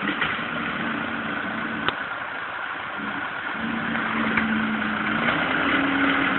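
Fordson Super Major tractor's four-cylinder diesel engine running steadily while driving a Cooks winch to drag tree butts, its note rising and getting louder about five seconds in. A single sharp click about two seconds in.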